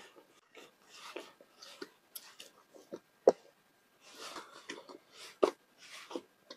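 Hands kneading flour dough: irregular soft squishing and rustling, with a sharp crack about three seconds in (the loudest sound) and another a couple of seconds later.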